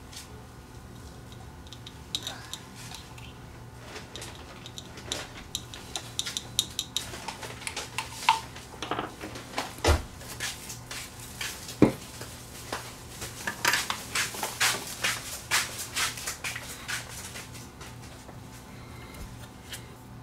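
Clicks, taps and light scrapes of a bottle of no-clean rosin flux being handled and its brush cap worked and screwed back on, with two sharper knocks midway. A low steady hum runs underneath.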